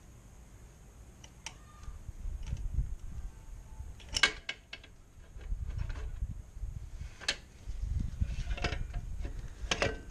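Metal clinks and knocks with low rumbling thuds as a Honda NC750X's rear wheel is worked free and lifted out of the swingarm. The sharpest clink comes about four seconds in.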